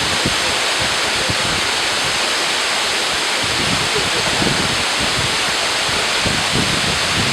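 Waterfall rushing steadily: a dense, even wash of falling water with no breaks.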